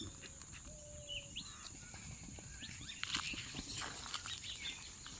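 Outdoor ambience: short bird chirps scattered through, over a steady high-pitched hum, with faint rustles and clicks.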